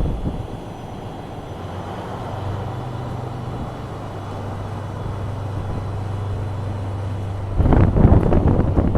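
Locomotive shunting cement wagons, its motor running with a steady low hum. A louder, rough rumble starts suddenly near the end.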